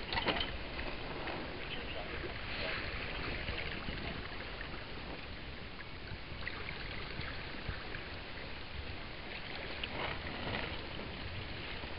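Steady rush of water along the hull of a sailboat running downwind under sail, with a few brief louder swishes.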